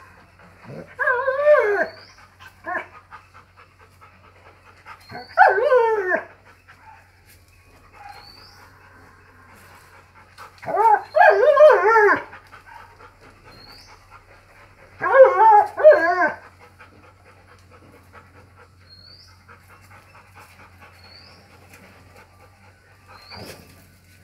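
Rottweiler giving four loud bursts of wavering, whining calls, each about a second long and spaced a few seconds apart, as it plays.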